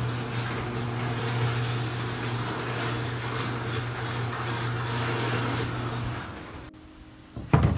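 Electric opener raising a sectional garage door: a steady motor hum with the door rattling, which stops about six seconds in. A single loud thump comes near the end.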